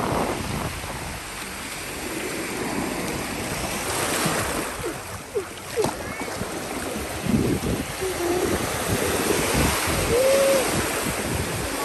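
Small waves washing and breaking in shallow surf around wading feet, a steady rushing with gusts of wind buffeting the microphone.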